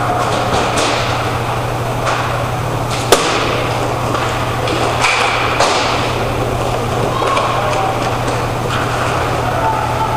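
Roller hockey play on a plastic tile rink: inline skate wheels rolling and scraping and sticks clacking, with one sharp crack about three seconds in, over a steady low hum.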